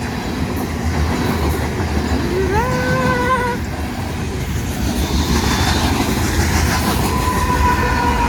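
Loaded coal train cars rolling past with a steady low rumble and wheel clatter. About two and a half seconds in, a short tone rises in pitch and holds for about a second. A thin steady tone comes in near the end.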